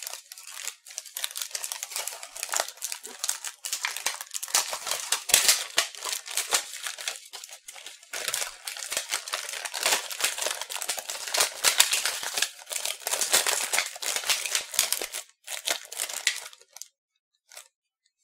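Plastic snack packaging crinkled and rustled by hand, a dense run of crackles that stops near the end.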